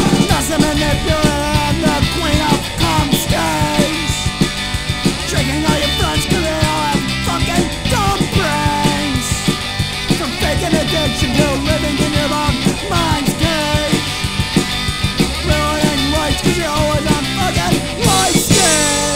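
Punk rock band playing a song, heard as a demo recording dubbed from cassette.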